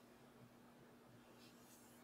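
Near silence: room tone with a steady low hum, and a faint brief rustle near the end, like a hand brushing over the wood.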